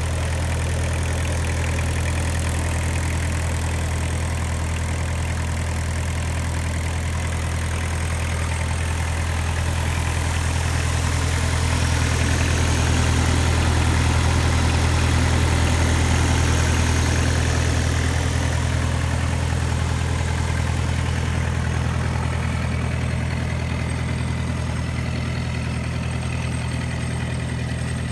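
Kubota diesel engine of a Ransomes 350D five-gang fairway mower idling steadily, getting a little louder in the middle and easing off again.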